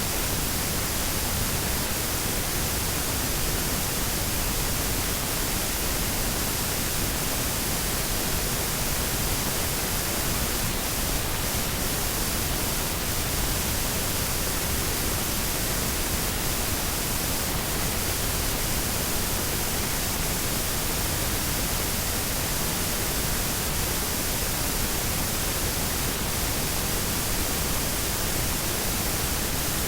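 Washing machine running, giving a steady, even rushing noise with no rhythm or change in pitch.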